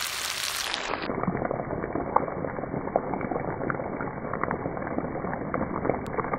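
Pinakbet of pork belly and vegetables sizzling in a non-stick frying pan on the heat: a steady hiss with scattered small crackles and pops. It turns dull from about a second in until just before the end.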